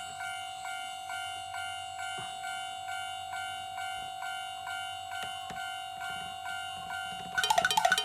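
A toy railroad crossing's electronic alarm sounding the Japanese crossing-bell "kan kan", a pitched ding repeating steadily about twice a second. Near the end a louder, busier run of tones joins in.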